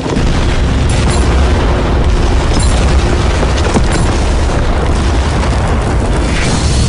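Film-style explosion sound effect: a big fireball blast rumbling on continuously with a heavy, deep low end.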